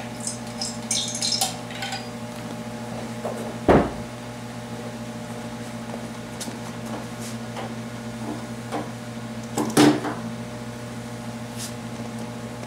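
Small metal clinks and knocks of hand tools and parts being handled on a motorcycle, with two sharper knocks about six seconds apart, over a steady electrical hum.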